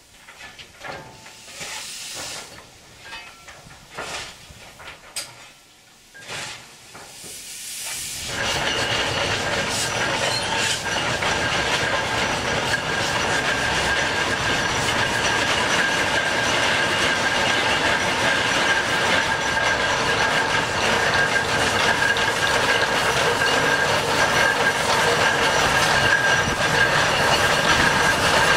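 Ruston steam excavator working under steam: a few scattered short knocks and puffs, then about eight seconds in a loud, steady rush of hissing steam that keeps going as the machine swings its jib.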